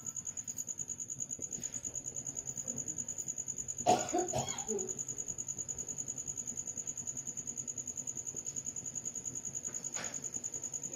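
A person coughs once or twice about four seconds in, over a faint steady background with a thin high-pitched whine.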